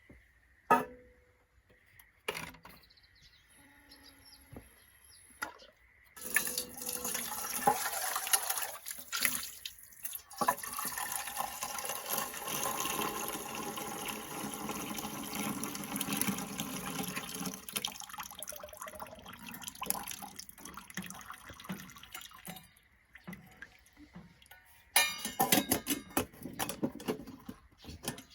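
Water being poured or run into a container, a steady stream that lasts about sixteen seconds with a brief break about ten seconds in. Near the end comes a burst of quick clattering, like handling metal cookware.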